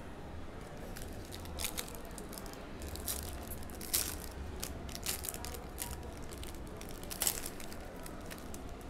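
Trading-card pack wrapper crinkling and tearing, with cards handled: a string of irregular rustles and sharp clicks over a steady low hum.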